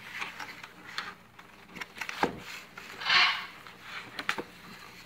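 Cardboard box being opened by hand: flaps and a sheet of paper rustling, with a few light knocks and taps. The loudest part is a short burst of rustling about three seconds in.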